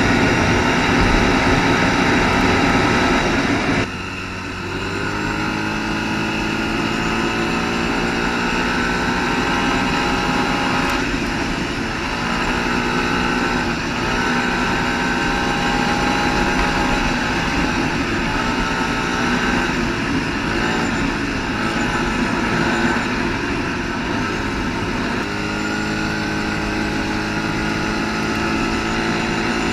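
ATV engine running under way: the throttle backs off sharply about four seconds in, then the engine pulls again, its pitch climbing and dropping back several times as the speed changes.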